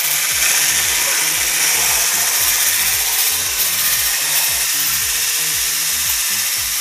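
Electric hand blender with a whisk attachment running steadily at speed in a tall beaker, whipping chilled milk with powdered vanilla ice-cream mix so that it swells in volume.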